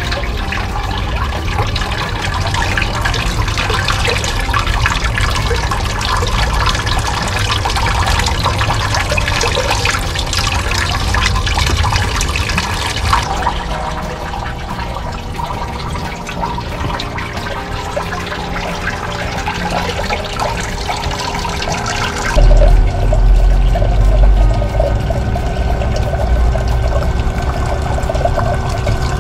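Water circulating and churning in the bowl of a GoldenShark 12V blue-bowl gold concentrator, run by a battery-powered pump set low, with a steady hum under it. About three-quarters of the way through, a louder low rumble joins in.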